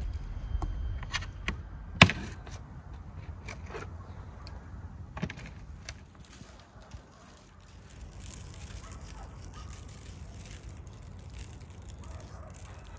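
Salt sprinkled by hand from a wooden bowl, grains pattering lightly onto skewered potatoes and vegetables on a wooden board, with scattered light clicks and one sharp tap about two seconds in.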